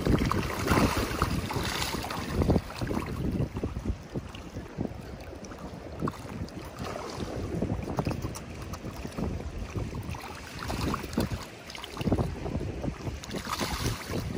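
Mullet splashing and slurping at the surface of shallow water as they mob bread held in a hand, in irregular bursts that are busiest at the start and again near the end. Wind is buffeting the microphone.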